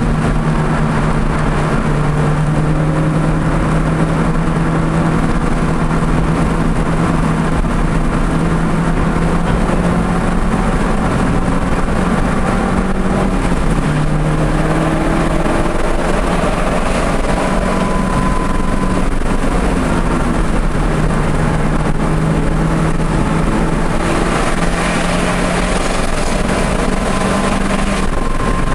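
Audi TT's engine running under steady load at track speed, heard onboard, its pitch holding fairly level with a few small shifts, over a constant rush of wind and road noise.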